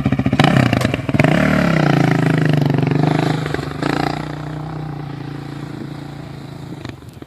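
ATV engine running hard and revving, its pitch dipping and climbing again about a second and a half in. After about four seconds it settles to a steadier, quieter note.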